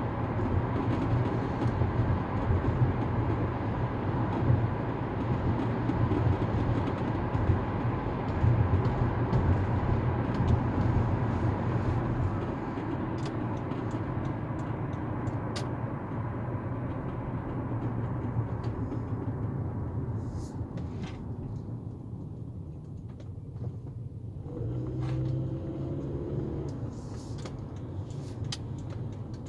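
Heavy vehicle rumble, steady and then fading away over about ten seconds; a motor engine is heard briefly near the end.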